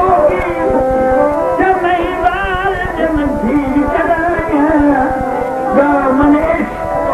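Music with fast, steady drum beats under a melody whose pitch wavers and bends.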